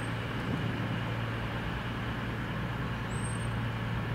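Underfloor diesel engines of a CrossCountry Voyager multiple unit running steadily, a constant low hum.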